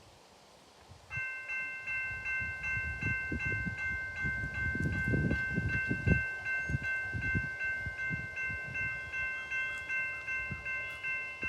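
Electronic railroad crossing bell ringing, starting about a second in and striking evenly about two and a half times a second: the crossing signals activated by an approaching train. Low, gusty rumbling runs underneath, strongest in the middle.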